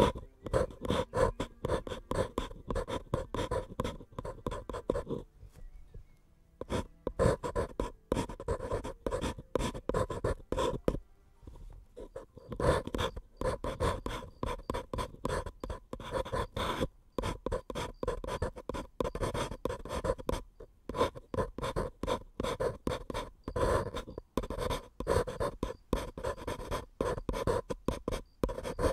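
Pencil writing on a paper cup: quick, scratchy strokes in close succession, in runs broken by two short pauses, about five and eleven seconds in.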